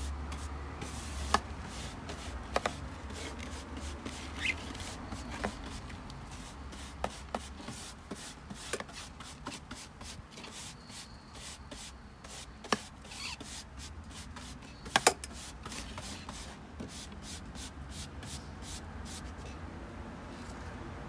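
Hand brush with stiff bristles sweeping loose potting soil and perlite across a wooden tabletop in many quick scratchy strokes, with a few sharper clicks along the way.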